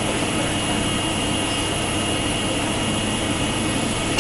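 Eight-spindle 4-axis CNC wood router on a dry run: its spindles run with a steady high whine over even machine noise.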